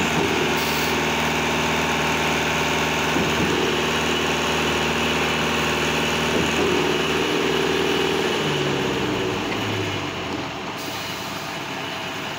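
Concrete batching plant and trailer-mounted concrete pump running together with a steady machine hum. About eight and a half seconds in, one motor's pitch falls in steps as it slows, and the overall sound drops a little.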